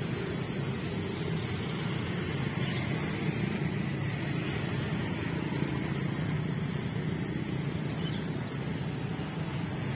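Steady low rumble of distant vehicles, holding an even level throughout.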